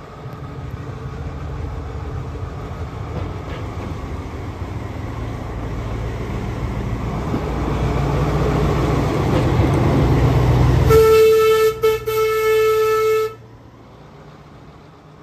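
Diesel shunting locomotive's engine running and growing steadily louder as it works. About eleven seconds in, its horn sounds for about two seconds with a brief break, then cuts off suddenly.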